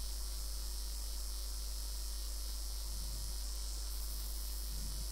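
Steady recording background noise: a low electrical mains hum under an even high-pitched hiss, with no speech.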